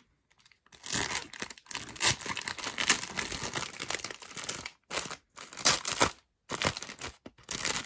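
Packaging being crinkled and torn open by hand, in irregular rustling bursts broken by a few brief pauses.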